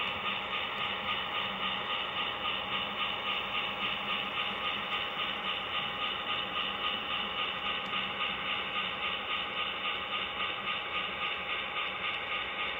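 Model railway train running along the layout track: a steady mechanical running sound with a regular clatter about three times a second.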